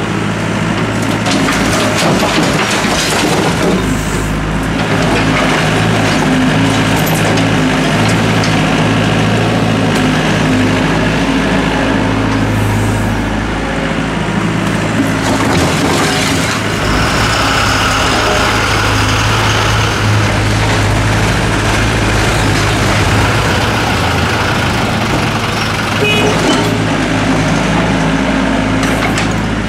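Doosan DX55W wheeled mini excavator's diesel engine running steadily under hydraulic load, with spells of brick and concrete rubble clattering and scraping as the bucket tips loads into a steel dump-truck bed and digs into the rubble pile.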